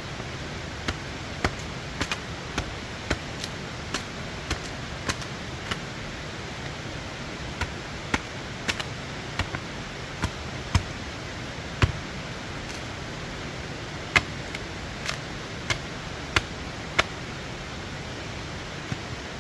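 Steady rush of river water with irregular sharp knocks and taps, about two dozen of them spread unevenly through the stretch.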